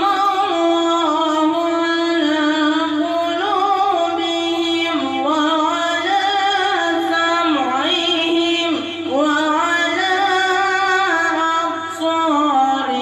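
A boy reciting the Quran in a melodic, chanted style into a handheld microphone. One voice holds long notes with ornaments, with short breaks about eight and a half and twelve seconds in.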